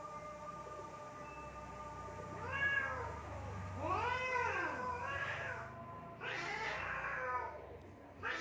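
Domestic cats yowling at each other in a fight: a long held wail, then several drawn-out yowls from about two and a half seconds in, each rising and falling in pitch.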